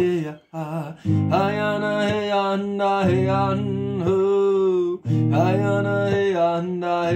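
A man singing a wordless chant over a strummed steel-string acoustic guitar, with a brief break in the sound about half a second in.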